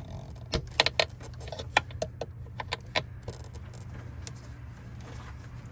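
Irregular sharp plastic clicks and knocks from a screwdriver working the squeeze-tab connector of a small line off the plastic air filter housing, over a steady low hum.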